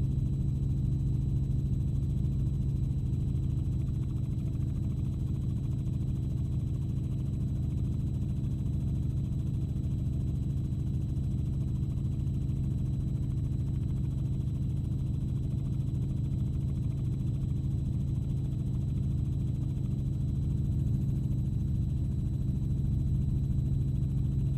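Helicopter in flight heard from inside the cabin: a steady low drone of engine and rotor with no change.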